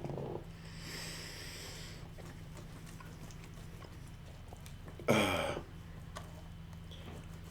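Quiet eating pause. About a second in there is a breathy nasal sniff, and about five seconds in a short voiced sound that falls in pitch, like an appreciative "mmm" through a mouthful, over a steady low electrical hum.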